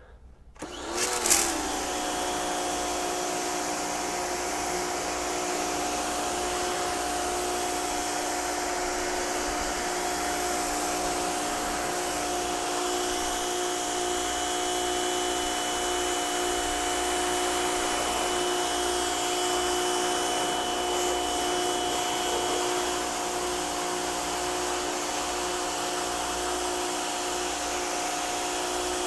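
Rock & Rocker electric pressure washer starting up about a second in, its pitch rising briefly, then running steadily with the motor and pump humming. Under the hum is the steady hiss of the high-pressure spray from a 40-degree tip hitting the siding.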